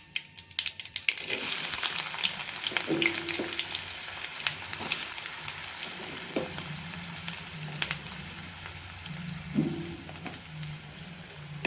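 Sliced onions hitting hot sesame oil with a tempering of mustard seeds, fenugreek and cumin. After a few crackles, a loud sizzle starts about a second in and slowly dies down as the onions are stirred in the pan.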